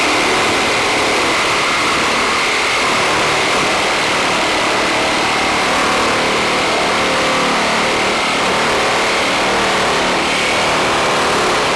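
Power saw running steadily under load, cutting along a chalk line through the shed's lap siding. The sound is continuous and loud throughout.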